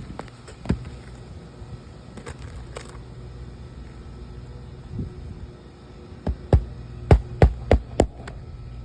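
Hammer striking nails into a new roof shingle: one blow about a second in, then a quick run of about six blows, about three a second, near the end.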